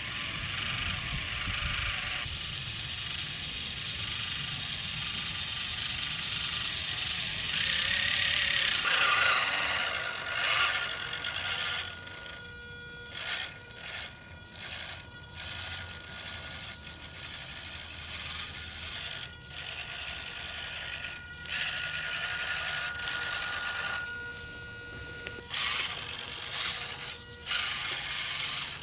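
Electric drivetrain of a 1/24-scale Losi Micro Trail Trekker RC crawler, its small motor and gears running with a high whine as it crawls over dirt. It runs steadily for about the first twelve seconds, then in short stop-start bursts of throttle.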